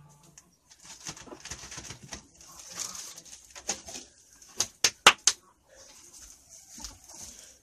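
Farmyard birds with a quick run of four sharp clicks or knocks about two-thirds of the way through.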